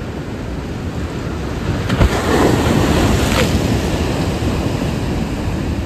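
Ocean surf washing and breaking, with wind buffeting the microphone. The wash swells about two seconds in, along with a brief knock.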